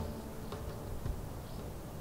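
Faint steady background noise, mostly a low rumble, with a couple of soft ticks; the last of a music track dies away right at the start.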